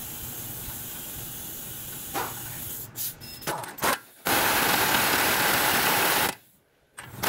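Pneumatic tool run in a burst against the threaded end of a Hyundai's front drive axle in the hub: a loud hissing burst from about four to six seconds that stops abruptly. Before it there is a steady hiss and a few short knocks as the tool is set in place.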